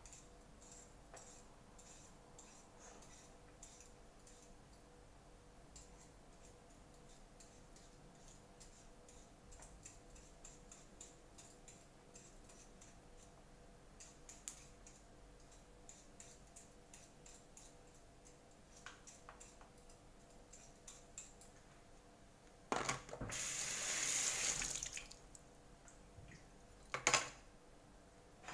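Faint, frequent scraping ticks of a potato being peeled by hand over a bowl, then a kitchen tap runs for about two seconds past the middle, with a short louder burst of noise near the end.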